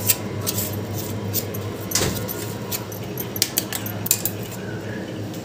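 Scattered light metallic clinks and jingles over a faint steady hum, with a sharper click about two seconds in.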